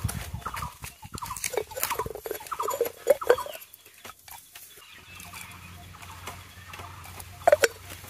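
Short, pitched chirping calls of a bird, many in quick series over the first three seconds or so, then fading out; two brief sharp sounds near the end.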